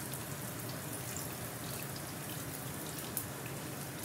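Red chilies and chopped green chilies sizzling in hot oil in a pan: a faint, steady crackle with scattered small pops.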